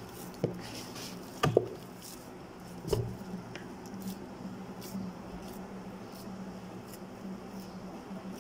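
Hands pressing and patting oiled pizza dough in a plastic tub: soft squishing, with three sharp knocks about half a second, a second and a half and three seconds in. A steady low hum runs underneath.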